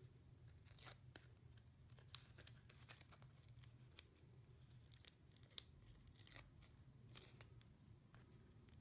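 Faint scattered rustles and small clicks of paper and the backing of foam adhesive strips being peeled and handled, over a low steady room hum.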